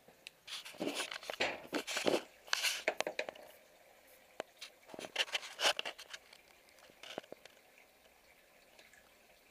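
Bursts of rustling with sharp clicks mixed in: one spell from about half a second to three and a half seconds in, a second around five to six seconds in, and a single click near seven seconds.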